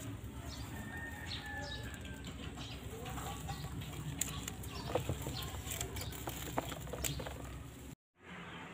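Dry amaranth seed heads rustling as they are shaken and rubbed over a plastic basin, with seeds pattering into it in scattered light ticks.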